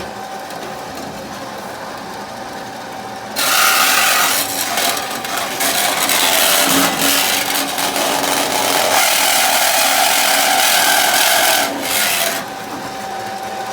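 A power saw runs with a steady hum; from about three seconds in to near the end its blade bites into metal plate with a loud, harsh rasping cut, easing off briefly twice, then falls back to the hum. The blade is going dull.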